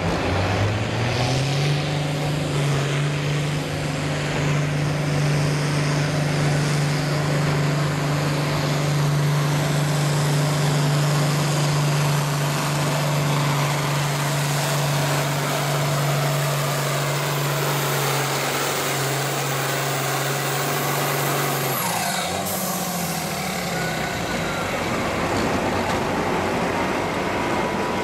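Turbocharged diesel farm tractor engine under full throttle while pulling a weight-transfer sled. It climbs to a high, steady pitch in the first second or two and holds there, then drops off abruptly about 22 seconds in as the throttle is cut at the end of the pull.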